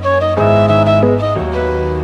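Background music: a slow instrumental piece with held melody notes changing every half second or so over a sustained bass.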